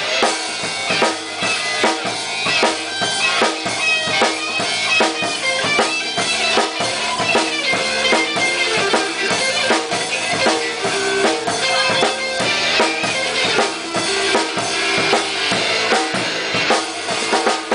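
Blues band playing an instrumental break between sung verses, with a drum kit keeping a steady beat under held lead notes.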